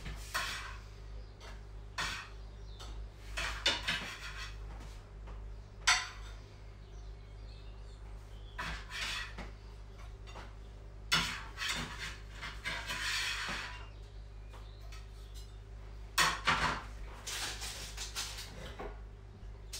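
Intermittent clinks, clatters and scrapes of a knife and plates as freshly baked cookies are lifted off a tray onto a plate, in several short bursts over a steady low hum.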